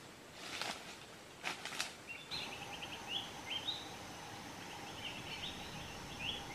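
Footsteps crunching and brushing through dry leaf litter and undergrowth for about two seconds. After an abrupt change, a faint steady background follows, with short, repeated rising bird chirps.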